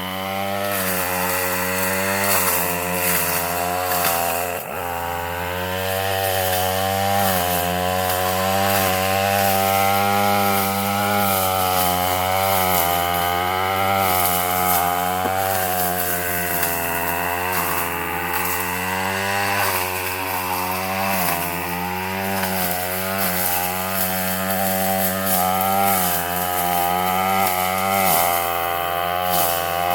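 Gas weed eater's two-stroke engine running with a brush-cutting blade attachment, its revs rising and falling as the blade cuts through heavy brush. There is a brief drop about four and a half seconds in.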